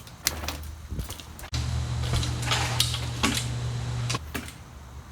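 Mountain bike run at a dirt jump: rushing tyre and wind noise with several sharp knocks, the loudest about three seconds in. It breaks off suddenly about a second and a half in, then comes back louder for a few seconds.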